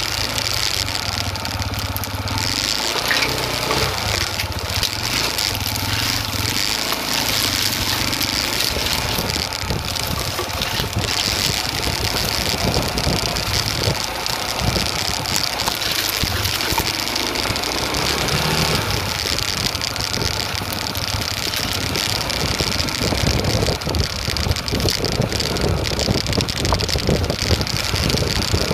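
Motorcycle engine running at low speed while the bike rides a rough dirt trail, with frequent clatter and knocks, a little louder and rougher near the end.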